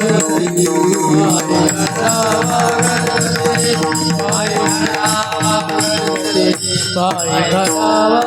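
Devotional bhajan music between sung lines: a sustained melody carried over a steady beat of rapid jingling hand-cymbal strokes, with drums.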